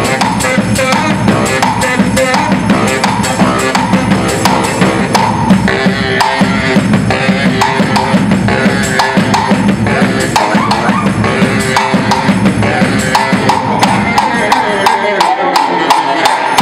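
Baritone saxophone and a strapped-on marching drum playing live together: a saxophone line over a steady, fast drumbeat.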